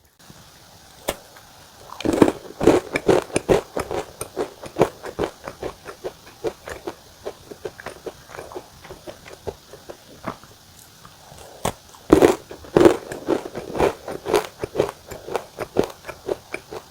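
Close-up crunching of a crisp La Mère Poulard apple caramel butter cookie being bitten and chewed. A loud bite and a run of crunches comes about two seconds in, and a second one about twelve seconds in, each trailing off into quieter chewing.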